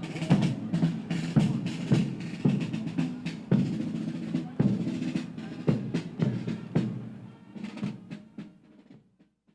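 Marching band drums playing a cadence: snare rolls over regular bass drum beats about two a second, fading out near the end.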